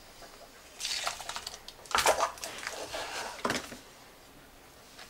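Thick plaster-and-sand investment slurry poured from a metal pot into a plastic mold box, with the pot scraping and clinking through the pour. The sounds die away after about three and a half seconds.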